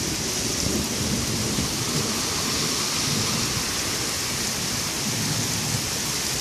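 Heavy downpour: a steady, dense hiss of rain pouring onto a flooded street.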